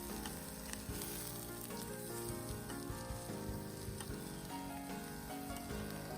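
Background music with a melody of short, stepping notes over a steady hiss scattered with small crackles.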